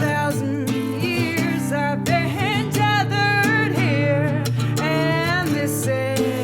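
A woman singing a slow melody of long held notes with vibrato, over a strummed acoustic guitar.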